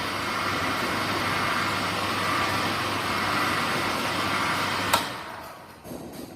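Oilless electric air compressor switched on with a click, running with a steady whirring hum, then switched off with a click about five seconds in and spinning down.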